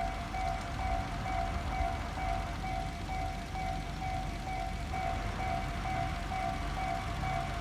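Japanese railway level-crossing warning bell ringing in a steady, fast repeat of about two or three rings a second: the crossing is closed for approaching trains. A low rumble of road traffic runs underneath.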